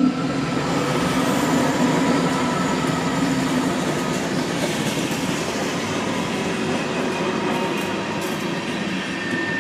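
Freight train rolling past close by: a steady rumble and clatter of steel wheels on the rails, with a low droning tone that fades out about halfway through.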